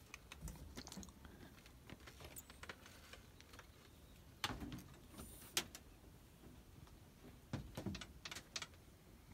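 Faint, scattered light clicks and knocks, about a dozen, from someone moving about a boat's cockpit; the two loudest come roughly halfway through and a quick cluster follows near the end.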